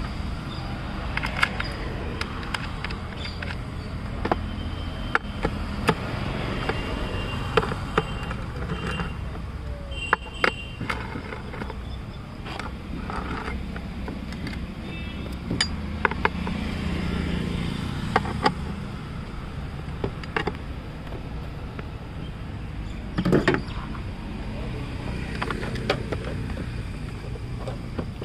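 Scattered clicks and knocks of hands handling the ECM unit and plastic fittings in a car's engine bay, with a louder cluster of knocks a little before the end, over a steady low rumble.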